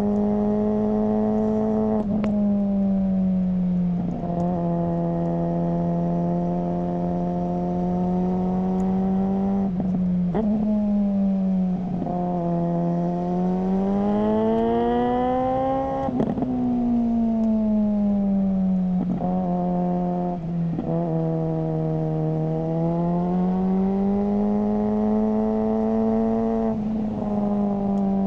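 Suzuki GSR600's inline-four engine running through a GPR Ghost aftermarket exhaust, under way. The pitch drops abruptly several times, as at gear changes, and rises and falls smoothly in between as the throttle opens and closes.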